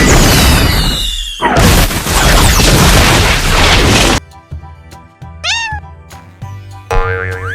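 Children's cartoon background music with cartoon sound effects: two loud whooshing noise bursts in the first four seconds, then a short meow-like cat cry about five and a half seconds in.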